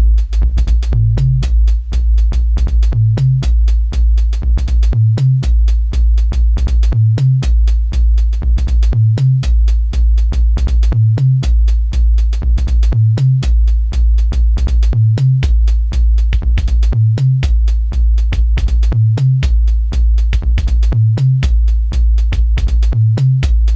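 Electronic bass music: a drum machine beat with fast, dense hi-hat ticks over a heavy, nearly continuous sub-bass, with a short bass figure that repeats about every two seconds.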